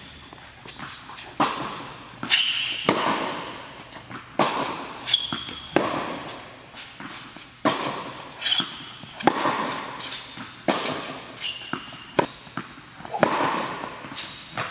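Tennis rally on an indoor hard court: a ball struck back and forth by racquets and bouncing on the court, sharp pops every second or so that echo in the hall, with short high squeaks of sneakers on the court between some of the shots.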